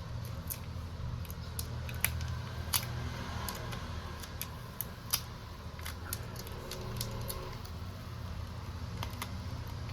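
Small hand tools clicking and tapping irregularly against a smartphone during battery replacement, over a steady low hum.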